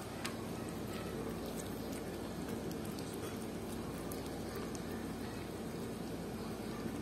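A cat chewing sardines: small, irregular eating clicks over a steady low background hum.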